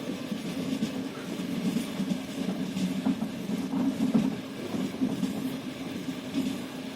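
Train wheels clattering on the rails over a steady low rumble, with scattered clicks and knocks.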